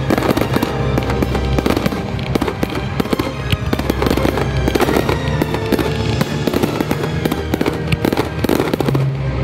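Aerial firework shells bursting in rapid succession, a dense run of bangs and crackles over background music. The bursts die away near the end, leaving the music.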